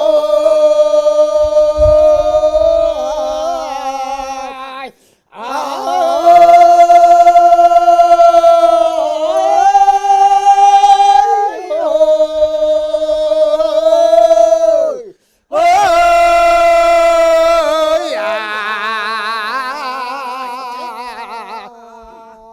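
Unaccompanied solo voice singing a slow Korean folk song with long held notes and wide vibrato. It sings three long phrases, broken by breaths about five and fifteen seconds in; the last phrase wavers and fades away.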